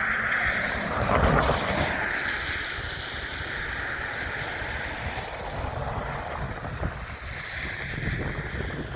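Train passing, a rushing rumble loudest about a second in, mixed with wind buffeting the microphone.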